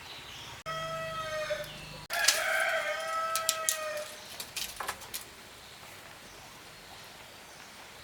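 A rooster crowing twice in a row, each crow a long pitched call lasting about one and a half to two seconds. A few sharp clicks follow near the end of the second crow.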